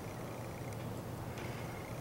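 Quiet, steady room hiss with a low hum and a couple of faint clicks as small side cutters are worked against the plastic fiber optic filament on the front sight.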